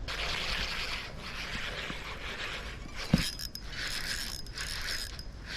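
Spinning fishing reel being cranked, its gears whirring and scraping in uneven spells, with a single thump about three seconds in.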